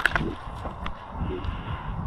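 Footsteps and kit rustling picked up by a helmet-mounted camera's microphone, with a sharp click right at the start.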